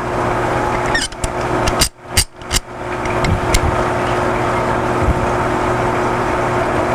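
A steady mechanical hum over a constant noise bed, with a few sharp metallic clicks in the first half as pliers grip and release a spring hose clamp on plastic tubing.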